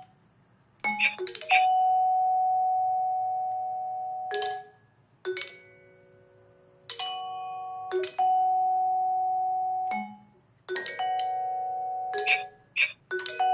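Vibraphone played with yarn mallets: chords of several notes struck every second or two, each ringing on and then cut off sharply. There are a few sharp clicks in between.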